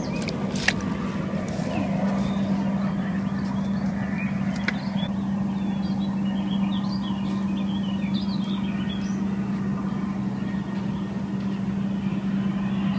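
A steady low motor hum that holds one pitch throughout, with short high chirps scattered through the middle of it.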